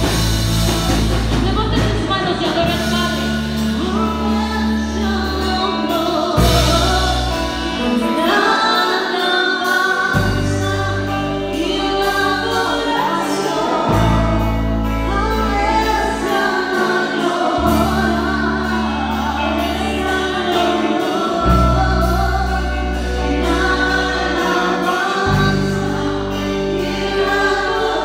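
Live worship song: a woman sings lead into a microphone over electric bass and band, with the congregation singing along. Long held bass notes change every couple of seconds.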